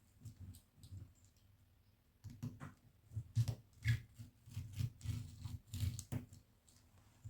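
Tracing wheel run over a paper pattern and fabric on a table to mark darts: short, irregular scratchy strokes with soft knocks, mostly after the first two seconds.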